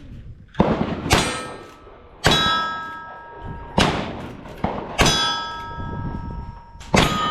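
Gunshots about a second apart, about six in all. After most of them a steel target rings with a clear, lingering clang.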